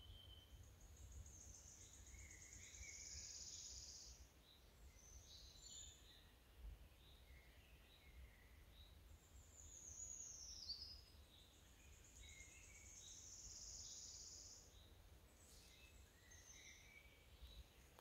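Faint songbirds singing: high trilling songs a few seconds long about a second in, near the middle and again later, one of them falling in pitch, with scattered short chirps lower down. A low steady rumble lies underneath.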